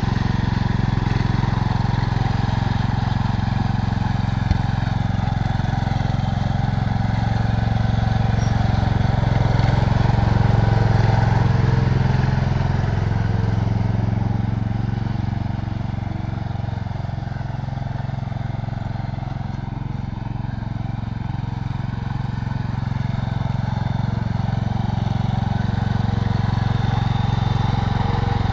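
1967 Cub Cadet 122 garden tractor's single-cylinder Kohler engine running steadily. It fades somewhat as the tractor drives away, about halfway through, and grows louder again as it comes back near the end.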